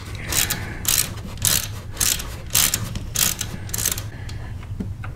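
Socket ratchet clicking in about seven short runs as it is swung back and forth, unscrewing the transmission drain plug on a Harley-Davidson Twin Cam touring bike. The clicking stops about four seconds in.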